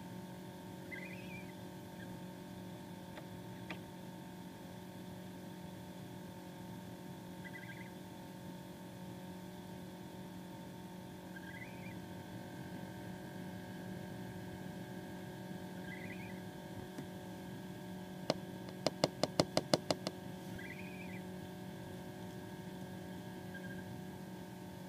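Steady mains hum from the incubator, with a hatching gosling giving a faint short peep every four seconds or so. About three-quarters of the way in comes a quick run of about eight clicks.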